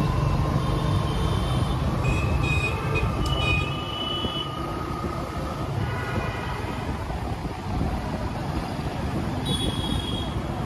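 Busy city street traffic heard from a moving motorcycle: a steady engine and road rumble, with short vehicle horn honks several times. The low rumble eases a little about four seconds in.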